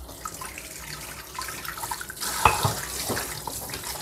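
Water running from a tap into a kitchen sink, with a couple of light knocks about two and a half seconds in.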